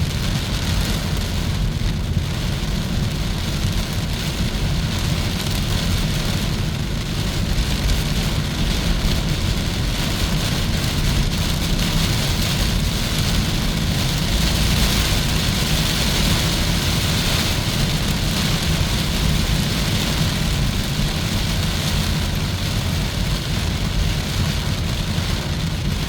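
Steady driving noise of a Hyundai Kona EV on the road: a continuous low tyre rumble with an even hiss over it, without engine sound.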